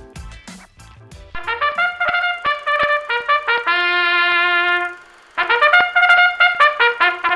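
Trumpet fanfare music. It plays a run of quick staccato notes ending in a held note, breaks off briefly, then starts the phrase again. It comes in about a second and a half in, as the end of a drum-backed music bed fades out.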